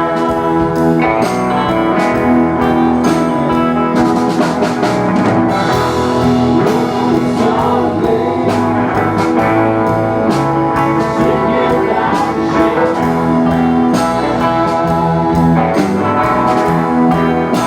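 Live blues-rock band playing: electric guitar, bass and drum kit, with singing.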